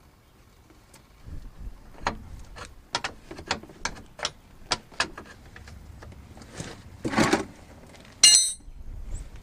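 Metal parts and tools clicking and clacking in an irregular run of sharp clicks, then a brief scraping rustle and a single loud ringing metallic clink near the end.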